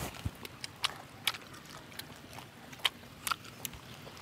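People eating grilled fish: chewing and mouth clicks, about five sharp clicks scattered over a steady background hiss.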